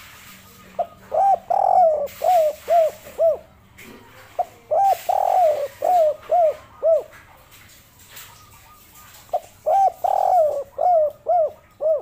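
Spotted dove (derkuku) cooing its 'kuk 3' song, three phrases of several rising-and-falling coos, each phrase about two and a half seconds long with short pauses between.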